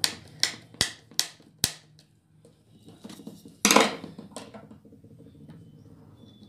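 Handling clatter as tools and a speaker box are worked on by hand: five sharp clicks about half a second apart in the first two seconds, then a louder, brief scraping rustle a little past halfway, followed by a few light taps.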